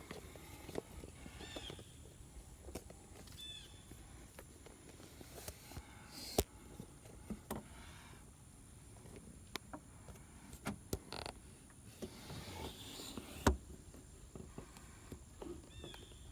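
Faint handling noise: scattered sharp clicks and knocks over a low background rumble, with a few faint chirps.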